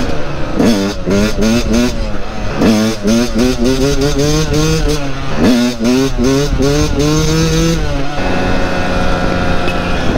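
Yamaha dirt bike engine accelerating hard. Its pitch climbs, drops and climbs again three times, like upshifts through the gears, then settles into a steadier note near the end.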